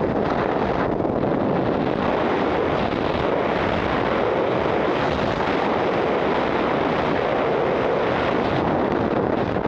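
Steady roar of freefall wind rushing over a skydiver's camera microphone.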